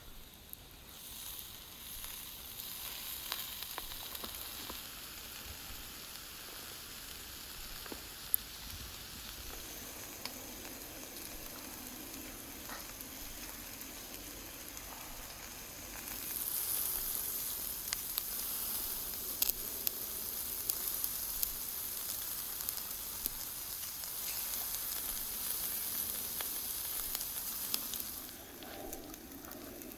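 Food sizzling as it fries, with occasional sharp pops. The sizzle grows louder a little past halfway and drops back near the end.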